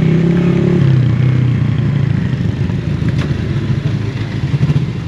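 Honda CG 125's single-cylinder four-stroke engine running at low revs as the bike rolls slowly, its pitch falling a little about a second in.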